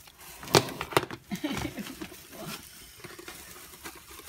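Two sharp clicks of a plastic tub's lid coming off and being handled, about half a second and a second in, followed by rustling of shredded paper packing as hands dig through it.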